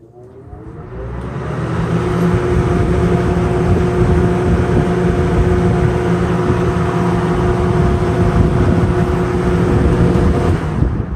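Sears (Lasko) 20-inch three-speed box fan switched on through its thermostat: the motor hum and blade rush rise over the first couple of seconds as it spins up, then run steadily until the power cuts out near the end.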